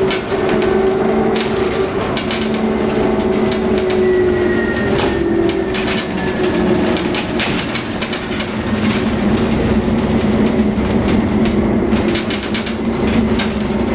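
Cabin of a moving 2015 Proterra Catalyst battery-electric bus: a steady drive hum with a faint high whine that slowly falls in pitch about four seconds in, over road noise and frequent rattles and knocks from the bus body.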